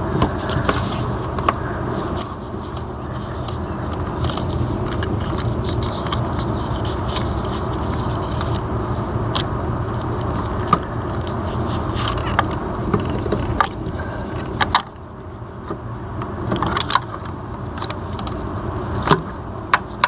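Metal clicks, taps and scrapes as a socket extension holding the spark plug is worked up out of the spark plug tube of a Toyota 1MZ-FE 3.0L V6. They sound over a steady low rumble that drops quieter about three-quarters of the way through.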